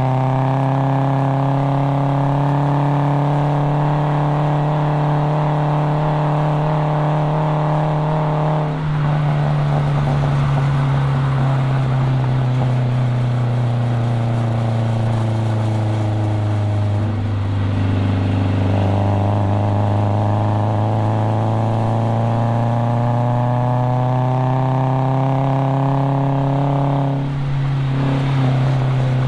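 Nissan KA24DE 2.4-litre four-cylinder engine of a track-driven 240SX under load, holding high revs, then lifting off about 9 s in with its note falling as the car slows. It comes back on throttle around 18 s and climbs steadily in pitch in a long pull, then lifts again near the end.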